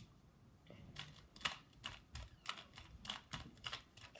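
Plastic 2x2 Rubik's cube turned quickly by hand as it is being solved: a fast, irregular run of clicks and clacks, getting busier about a second in.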